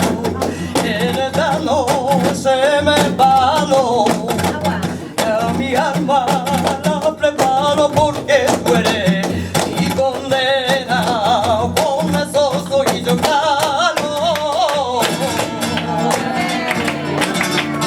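Live flamenco fandango: guitar accompanies a wavering melody with heavy vibrato, over sharp percussive clicks. The texture changes about fifteen seconds in.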